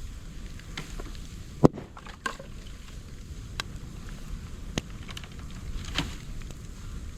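Moso bamboo burning in an open fire: scattered sharp pops and crackles over a steady low noise. The loudest pop comes a little under two seconds in, with others spread through the rest.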